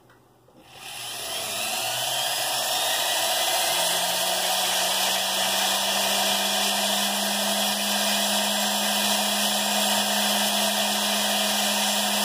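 Handheld rotary carving tool switched on about a second in, running up to speed and then running steadily as its small bit grinds the chalcedony cap off a fire agate.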